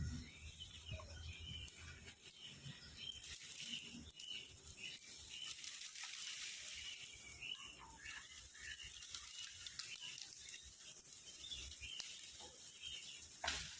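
Birds chirping faintly and on and off over a steady outdoor hiss.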